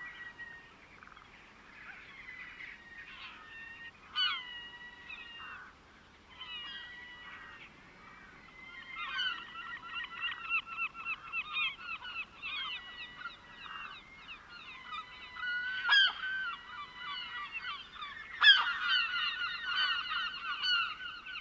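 Seagulls calling: harsh repeated cries, sparse at first, then a dense overlapping chorus from about nine seconds in, loudest near the end.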